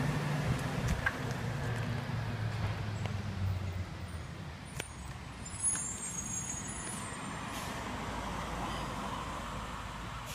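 Labrie Expert side-loading garbage truck's diesel engine running as it pulls away, fading over the first few seconds. It then comes to a stop with a brief air-brake hiss about six seconds in.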